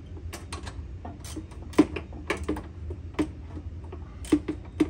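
Irregular metal clicks and taps of hand tools on a steel mower deck as a bolt is tightened, several in quick clusters, a few of them sharper.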